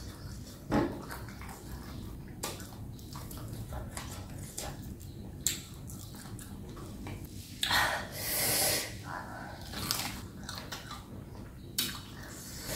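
Close-up chewing and biting of deboned chicken feet pickled with lemongrass and kumquat, with scattered short crunches and wet mouth sounds. About eight seconds in there is a louder breathy rush lasting about a second.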